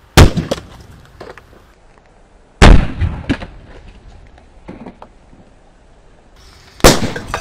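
Three loud blasts of calcium carbide (acetylene) explosions, the second about two and a half seconds after the first and the third about four seconds later. Each bang is followed by a few smaller cracks.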